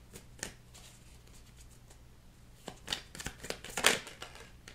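A deck of tarot cards being shuffled by hand: light papery rustles and snaps, sparse at first, then a busier run of louder card snaps about three seconds in, the loudest near the end.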